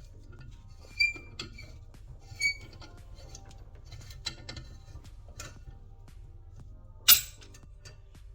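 Metal clinks and taps from valve parts being handled while stripping an LS aluminium cylinder head, with background music playing. Two clinks about one and two and a half seconds in ring briefly. A sharper knock about seven seconds in is the loudest sound.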